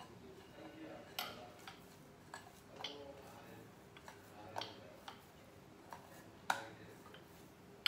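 Light, irregular taps and clicks of hands and a wooden rolling pin against a round steel rolling board while dough is shaped for rolling. There are about ten of them, and the sharpest comes about six and a half seconds in.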